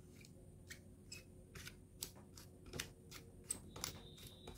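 Faint, irregular small clicks and scrapes of fingers screwing the knurled metal collar onto a soldering iron's plastic handle to tighten it.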